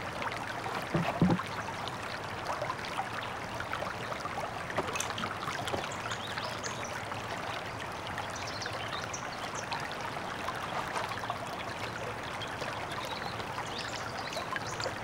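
Steady running water like a stream, with scattered faint clicks and a soft knock about a second in.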